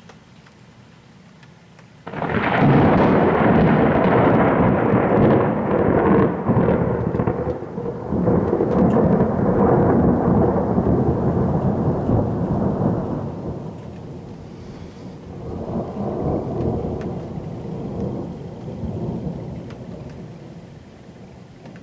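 Thunder from a nearby cloud-to-ground lightning strike. It opens about two seconds in with a sudden loud crack, then rolls on as a long rumble that eases, swells again and slowly dies away.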